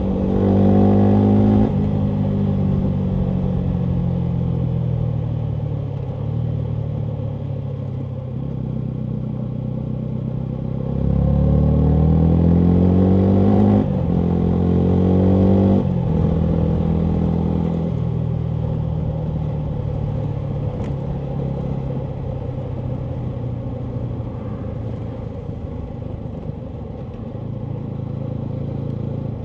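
Yamaha MT125's single-cylinder four-stroke engine through a full Akrapovic exhaust, ridden on the road. It revs up at the start, then winds down slowly after about two seconds. It climbs again in two pulls with a gear change between them, at about eleven to sixteen seconds in, then runs on with a gently falling pitch.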